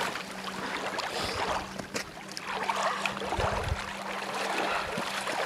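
Lake water sloshing and splashing around the legs of a man wading out of the shallows.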